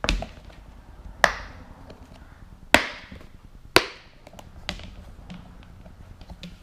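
A box being handled and opened: four sharp knocks a second or so apart, each with a short ringing tail, with fainter clicks and rustles between.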